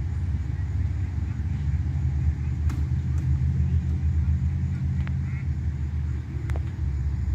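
Steady low engine rumble of an idling motor, with a few faint clicks over it.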